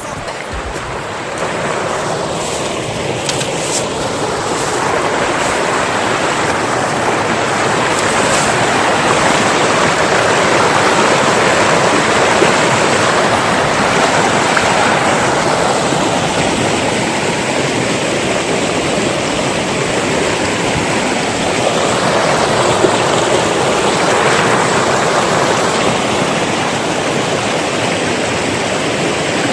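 Rushing river water: a steady, dense wash of flowing water that swells and eases slowly.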